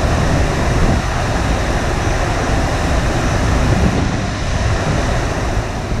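Steady rush of water pumped up the slope of a FlowRider surf simulator, with wind buffeting the microphone.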